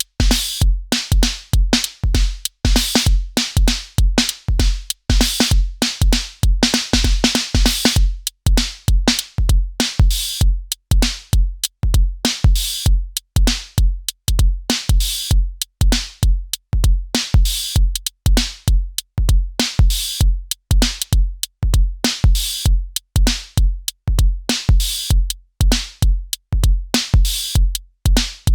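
Elektron Syntakt drum machine playing a drum pattern: a steady synthesized kick beat with crisp hi-hat and percussion hits between, the high hits growing busier twice in the pattern.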